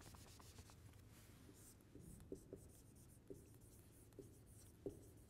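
Marker pen writing on a whiteboard: faint, short squeaks and taps of the felt tip, about half a dozen, over quiet room tone.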